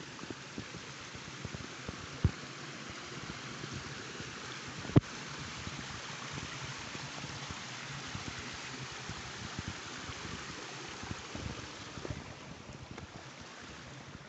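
Steady hiss of rain falling onto water and rock, with a few low knocks, the sharpest about five seconds in.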